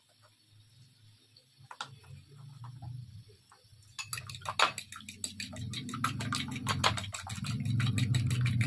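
An egg being beaten in a bowl: a few scattered taps, then from about four seconds in a fast, even run of clinking strokes, about nine a second. A low hum underneath grows louder toward the end.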